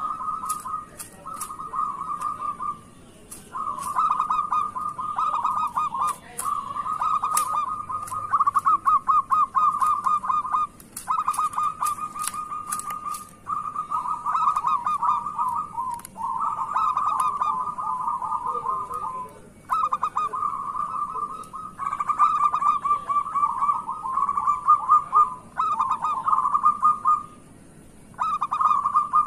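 Zebra dove (perkutut) cooing: a long run of rapid, trilled cooing phrases of one to three seconds each, following one another with short gaps.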